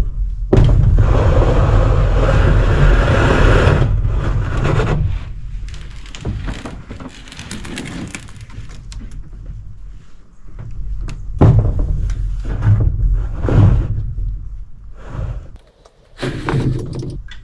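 Roofing panels being slid, scraped and knocked as they are handled. A long loud scraping rush starts about half a second in and lasts a few seconds, followed by scattered knocks and scrapes and another loud stretch of handling noise later on.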